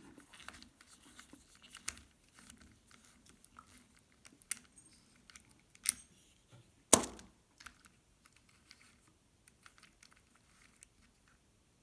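Battery terminal bolt being unscrewed from the post with a hand tool: faint, irregular small clicks and taps of metal on metal, with a few sharper clicks about four and a half, six and seven seconds in.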